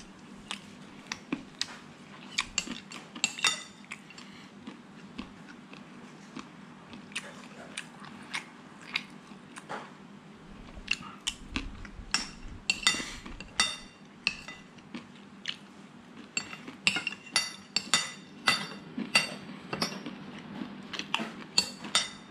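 Metal spoon and fork clinking and scraping on a ceramic plate, with chewing between. The sharp clinks come scattered at first and much more often in the second half, as the plate is scraped clean.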